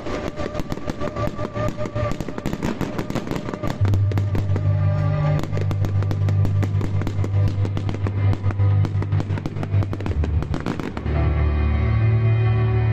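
Pyromusical fireworks display: dense rapid crackling and popping from bursting aerial shells over music with a steady deep bass. The crackling dies away about eleven seconds in, leaving the music.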